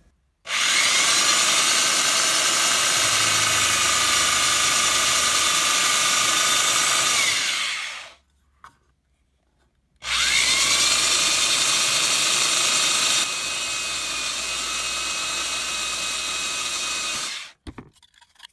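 Drill press running in two long spells, drilling holes in a thin clear plastic box; each time the motor's whine rises as it spins up, and the run stops suddenly, the second one about a second before the end.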